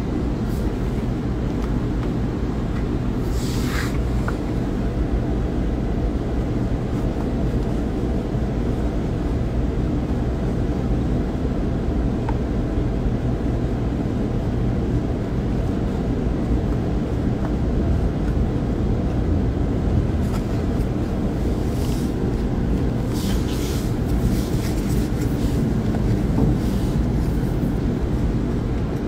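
Steady low rumble of background noise, with a few brief soft rustles.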